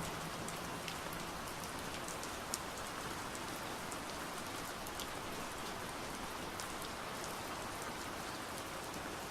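Steady gentle rain falling, with scattered individual drops pattering.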